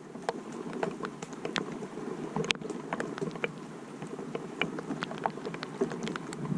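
Rain falling: irregular drops ticking sharply on a hard surface over a steady low hiss.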